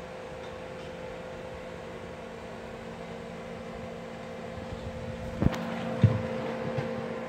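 A steady mechanical hum with constant tones, and two sharp knocks about five and a half and six seconds in.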